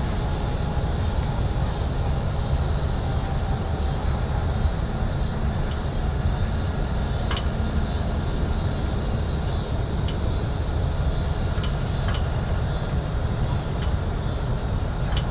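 Downtown city street ambience: a steady low rumble of traffic, with a few faint ticks and knocks.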